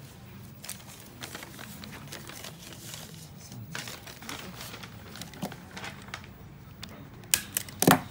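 Paper rustling and crinkling as a receipt and a sheet of paper are handled, with scattered small clicks. A few sharp clicks and a knock come near the end and are the loudest sounds.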